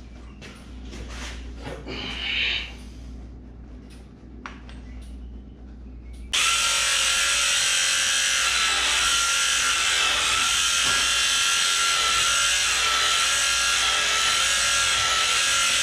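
Premier 1 electric sheep shearing clippers running steadily through wool: a loud buzzing whine that starts abruptly about six seconds in. Before that there are only quiet handling knocks and clicks.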